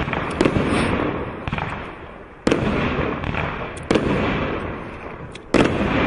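A 188-shot automatic firework cake firing in sequence: about five sharp bangs of shells bursting, a second or two apart, the loudest near the end. Each bang trails off over a second or more.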